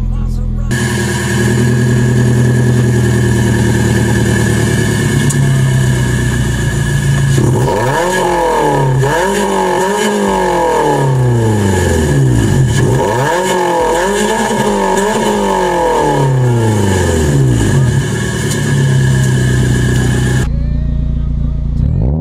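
Toyota Corolla 1.8 VVT-i four-cylinder idling through an aftermarket exhaust. In the middle it is blipped in two runs of quick revs, each rising and falling in pitch, then it settles back to idle.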